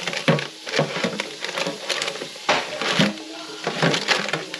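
A plastic zip-top freezer bag crinkling and rustling in irregular crackles as thawed rabbit pieces are worked out of it by hand.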